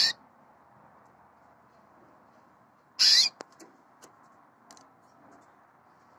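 Red frosted canary giving two short, loud, high-pitched calls, one right at the start and one about three seconds in, followed by a few faint chirps.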